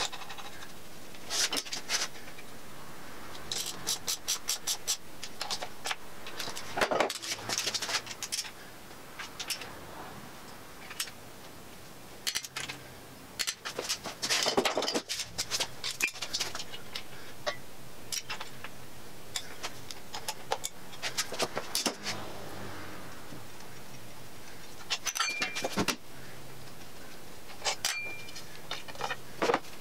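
Metal hand tools and engine parts clinking and clicking in scattered bursts during hand work on a bare LS 5.3L V8 block, with a couple of short metallic rings in the last few seconds.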